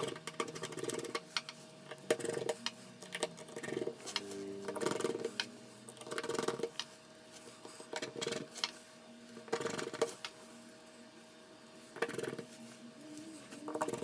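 Precision screwdriver working the small screws of a Samsung Galaxy S7 edge's midframe cover: light clicks and scrapes of the bit against metal and plastic, in short bursts every second or two. A faint steady hum runs underneath.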